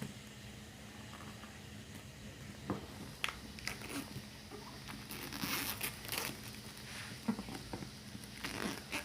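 Packaging being handled as a smartphone box is unpacked: crinkling and rustling with small clicks and taps, busiest about two thirds of the way through.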